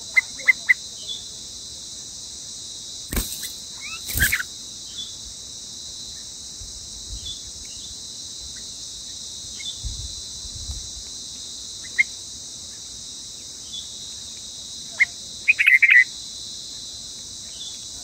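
A parent bulbul at its nest, robbed by a snake, gives short sharp calls that come singly and then in a loud burst near the end. Behind it is a steady high drone of crickets, and two sharp knocks sound about three and four seconds in.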